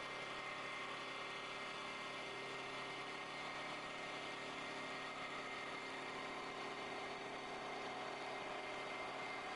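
CNC wood-turning lathe cutting a spinning wooden blank: a steady machine whir with a constant high whine, running without a break.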